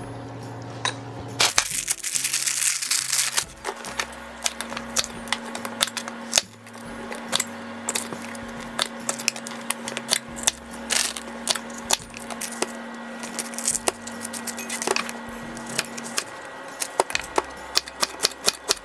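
Kitchen knife chopping zucchini and bell peppers on a plastic cutting board: a string of sharp, irregular knocks, at times several a second, over background music.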